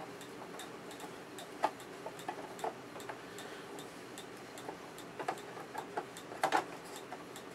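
Light, irregular clicks and taps of a part being fitted back onto the opened metal chassis of an Akai VT-150 reel-to-reel video tape recorder, with a louder cluster of clicks about six and a half seconds in.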